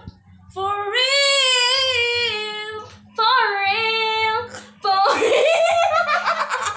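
A girl singing two long, sliding notes, then giggling and laughter from a group of girls starting about five seconds in.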